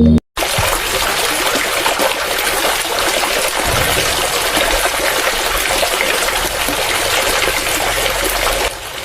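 Water gushing and splashing steadily from a small homemade water pump; the sound starts abruptly and stops shortly before the end.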